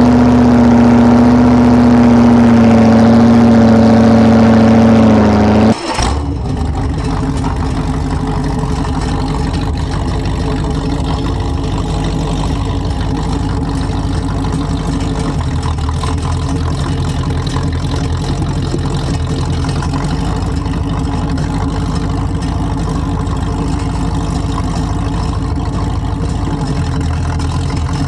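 Ferguson tractor engine running loud and steady under load while plowing, through tall open exhaust stacks. About six seconds in, it changes abruptly to a red Massey Ferguson tractor's engine running steadily with a rough, fast firing beat, heard from the driver's seat.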